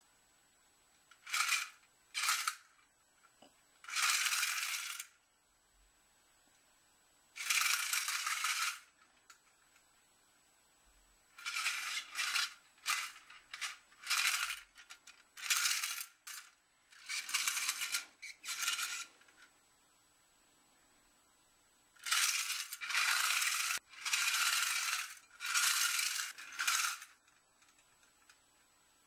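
Vintage Carter's Toys tin climbing monkey working its way up a string, its tin clockwork-free clutch mechanism sounding in about fifteen short bursts of up to a second and a half each, with pauses between.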